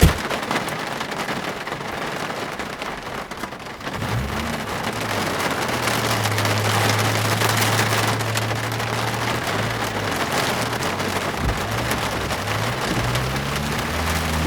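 Steady heavy rain, a dense hiss that cuts in suddenly at the start. From about four seconds in, a low droning hum comes in beneath it. The hum holds steady, then swells up and falls away again near the end.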